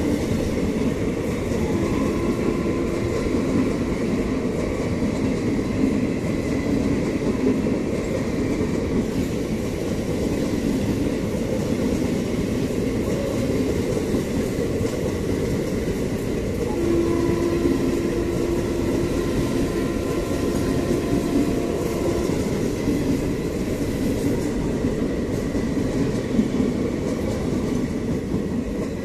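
Indian Railways passenger coaches rolling past at speed: a steady, loud rumble of wheels on rails with a clickety-clack over the rail joints, and a faint steady whine from the wheels now and then.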